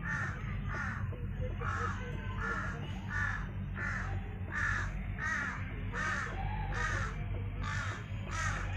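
A steady, regular series of short chirping calls from an animal, about two or three a second, over a low steady hum.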